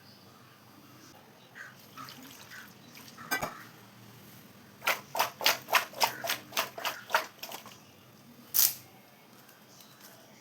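A quick run of about a dozen sharp kitchen knocks, about five a second, with a single knock before it and another after it.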